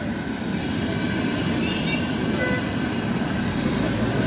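Batter-coated garlic pieces deep-frying in a large wok of oil, a steady sizzle, over steady street traffic noise.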